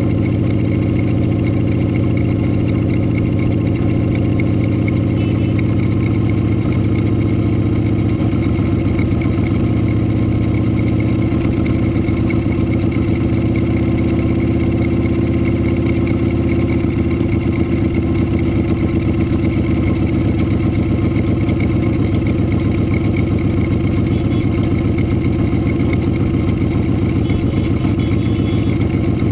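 Motorcycle engine running steadily at a slow parade pace, heard close up from the bike the camera is mounted on.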